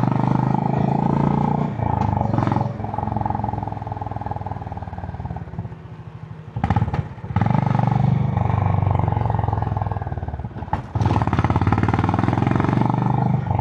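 Honda CB350 H'ness's air-cooled single-cylinder engine through its stock exhaust while riding, a thumpy, bassy note. The throttle eases off and the note fades a few seconds in, then it picks up again just past the middle. It dips once more briefly shortly before the end before pulling strongly again.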